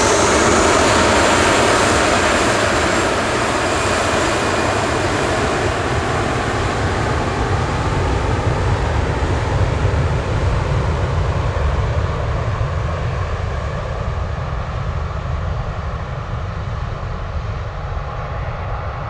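Airbus A340-300's four CFM56 turbofans at takeoff power during the takeoff roll. The whine and roar are loudest at first, then the high end slowly fades as the jet rolls away, leaving a deep rumble.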